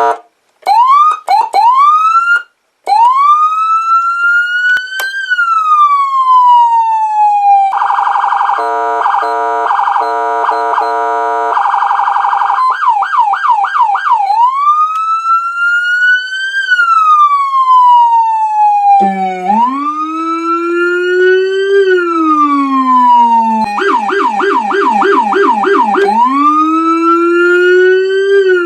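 Federal Signal electronic vehicle siren cycling through its tones. It opens with a few short whoops, then a slow wail rising and falling, a rapid choppy stepped warble about 8 seconds in, fast yelps and another wail. About 19 seconds in, the pitch drops for a deeper wail and yelp.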